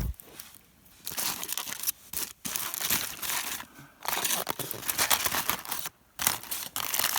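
Aluminium foil crinkling and tearing as a foil-wrapped campfire dinner packet is pulled open, in several rustling stretches with brief pauses.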